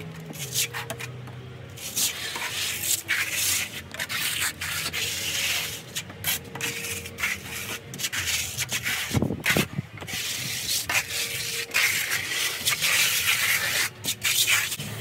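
A float rasping over a wet first coat of stucco in repeated scraping strokes, floating the levelling coat out to knock down high and low spots. A dull knock sounds a little past halfway.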